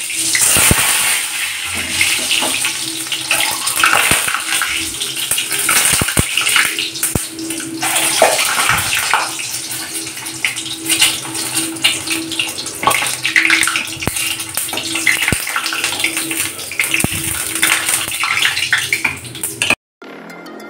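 Boiled eggs frying in hot oil in a metal kadai: steady sizzling and spattering, with repeated clicks of a metal ladle against the pan. It cuts off suddenly near the end.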